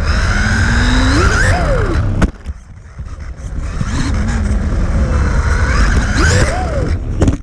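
Onboard sound of a Losi Mini-T 2.0 RC truck's 6000 kV Dynamite brushless motor whining, its pitch rising and falling as the throttle is worked, over a steady low rumble of the truck running. A little after two seconds there is a sharp knock and the sound drops off briefly, then winds up again.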